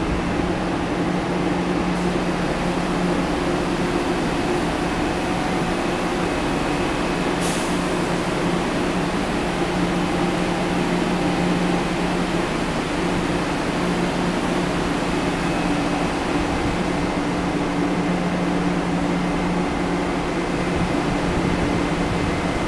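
Steady mechanical hum and rumble of an MBTA Blue Line subway train, Siemens-built cars, standing at an underground station platform, with a couple of steady low tones. A brief click comes about seven and a half seconds in.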